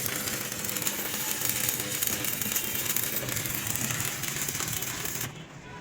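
Electric arc welding crackling and hissing steadily on a cracked truck rear axle; the crackle stops about five seconds in.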